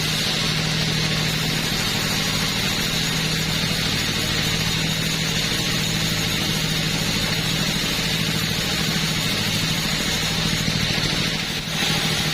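Two-stroke chainsaw running steadily at high speed, cutting through a teak log, with a brief drop near the end.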